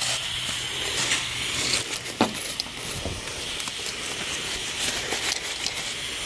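Stiff bristle brush scrubbing foaming degreaser on an engine, an uneven scratchy hiss, with one sharp knock about two seconds in.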